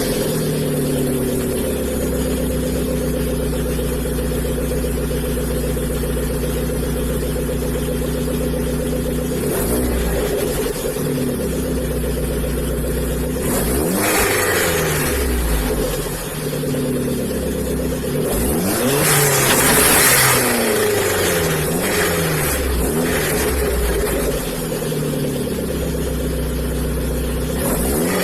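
Hyundai Genesis Coupe 2.0T's turbocharged four-cylinder engine running through its aftermarket exhaust, idling steadily and revved up and back down several times, with the biggest revs about 14 and 20 seconds in.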